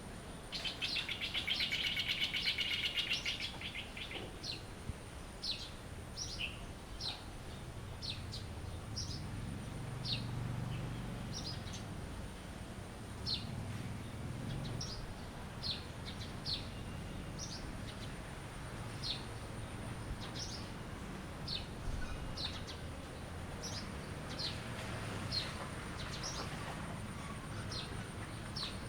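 Wild birds singing: short high chirps that drop in pitch, repeated every half second to a second or so, with a rapid trilling chatter in the first few seconds. A faint steady high hiss and a low background rumble lie beneath.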